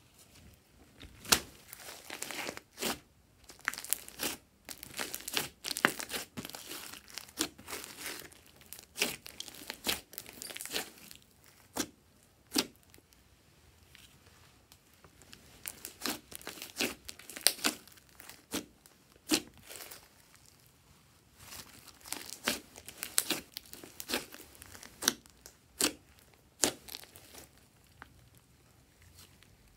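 Hands squeezing, folding and stretching glossy slime studded with small beads: irregular sticky crackling with sharp pops as pockets of air burst. There are quieter stretches in the middle and near the end.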